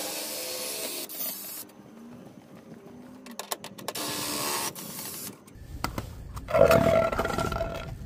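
Cordless drill running in short bursts on the screw of a scissor-type RV stabilizer jack, winding it up to retract it. Two steady whirring runs with short pauses are followed, from about the last two seconds, by a louder stretch with a low rumble.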